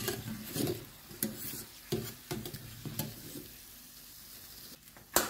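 Sesame dough pastries sizzling in hot frying oil while a metal wire skimmer scoops them out, clicking and scraping against the pot several times. The sizzle fades after about three seconds, and a sharp knock comes near the end.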